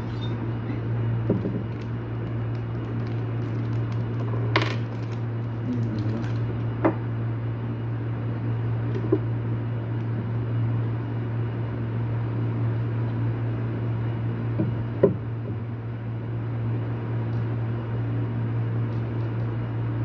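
Small metallic clicks and taps, about half a dozen spread out, from handling the parts of an electric siren motor while fitting its carbon brush and spring, over a steady low hum.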